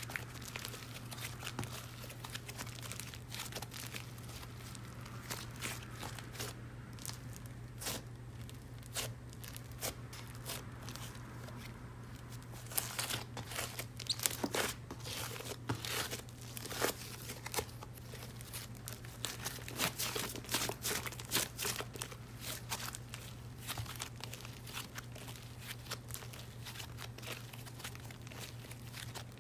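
Dried clay being cracked and crumbled by hand: a dense run of small snaps and crackles, busiest in the middle stretch.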